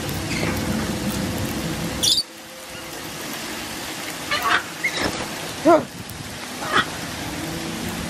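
Mixed flock of parrots pecking seed off a wooden deck, a steady crackle, with a few short squawks and calls from the birds. One call, about two seconds in, is high and rising.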